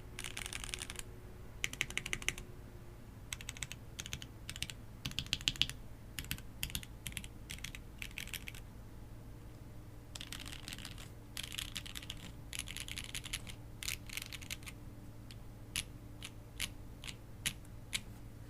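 Typing on a Portico65 mechanical keyboard with lubed Jwick T1 tactile switches on an FR4 plate: runs of quick keystrokes broken by short pauses, thinning to single key presses about a second apart near the end.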